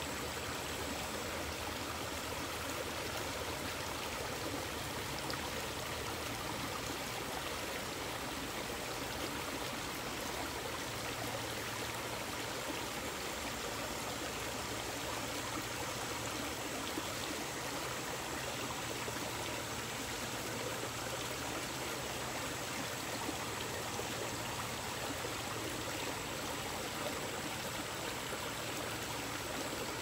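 Small rocky stream flowing over stones and a low ledge in a little cascade: a steady rush of running water.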